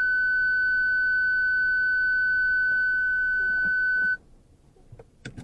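A steady electronic bleep on one high pitch, the kind of censor tone laid over a driver's words, held for about four seconds and cutting off suddenly. After it, near silence with a few faint clicks.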